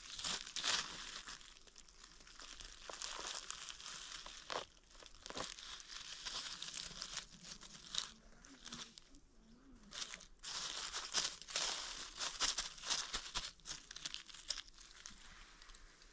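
Dry fallen leaves crackling and rustling in irregular bursts as a hand brushes them aside around a porcini mushroom and pulls it up, with a brief lull about nine seconds in.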